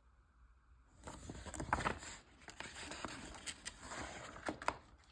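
Paper pages of a partwork magazine rustling as they are handled and turned. The sound starts about a second in and is full of small irregular crackles.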